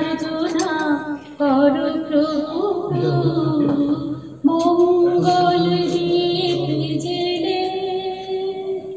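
A woman singing a song, holding long notes with vibrato, in phrases that break about a second and a half in and again about four and a half seconds in.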